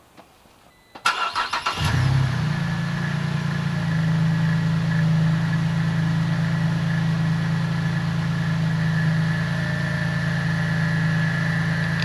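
A 2009 Pontiac G8's V6 is cranked by the starter about a second in, catches within a second and settles into a steady idle, with a steady high whine over it. This is the first start after the upper intake was refitted with its original gaskets to cure a misfire.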